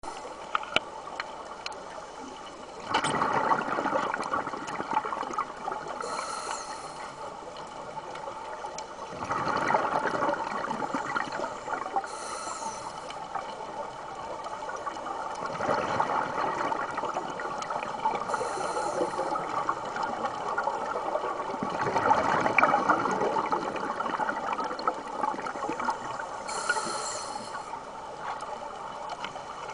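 Scuba regulator breathing underwater. A short hiss comes as each breath is drawn, then a burst of exhaled bubbles, in a steady cycle of about one breath every six seconds.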